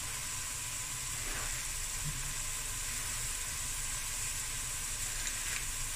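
Frozen peas and diced vegetables sizzling steadily in a hot stainless steel pot over high heat.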